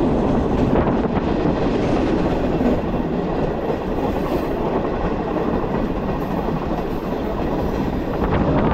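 Passenger train running along the track, heard from on board: a steady rumble of wheels and carriage.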